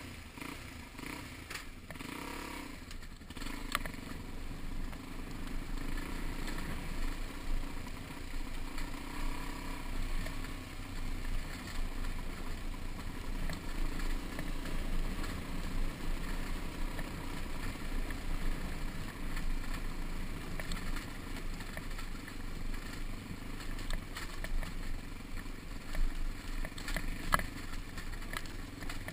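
Dirt bike engine running under way on a rough dirt track, settling into a steady note about three seconds in, with the bike rattling over the ground and a sharp knock near the end.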